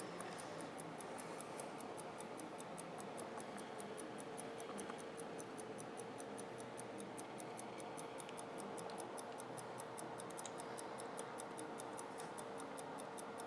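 Hamilton 992B railroad pocket watch ticking, faint, fast and even at about five ticks a second, over a faint steady hum.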